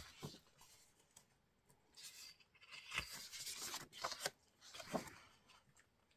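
Sheets of printed craft paper rustling and sliding against each other as they are handled, laid down and picked up, in a few short bouts with the longest about three seconds in.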